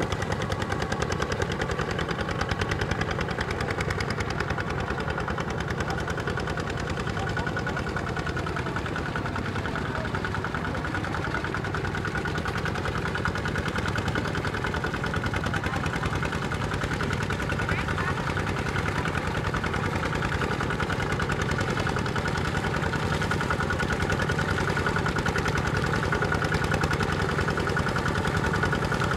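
ZT 155 single-cylinder diesel engine of a two-wheel walking tractor running steadily with a rapid, even firing beat, under load as it pulls cage wheels and a levelling board through deep paddy mud.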